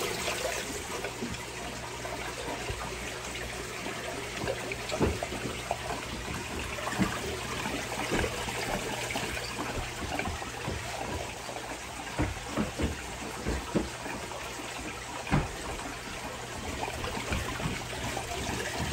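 Aquarium water trickling and splashing steadily, over a steady low hum, with a dozen or so short knocks and splashes scattered through.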